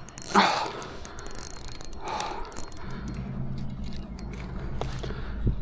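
Fishing reel cranking and its drag working against a hooked muskie. A low steady hum joins in about three seconds in.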